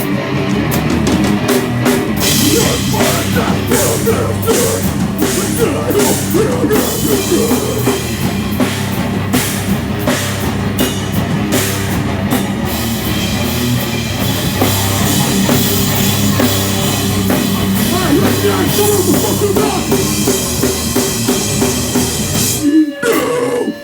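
Rock band playing loud and live on drum kit and guitars, with a brief sharp break in the music near the end.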